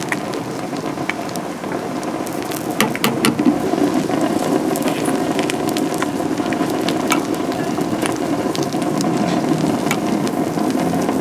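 Egg bread cooking in the hot metal moulds of an egg bread machine: a steady sizzle, with a few sharp clicks scattered through it.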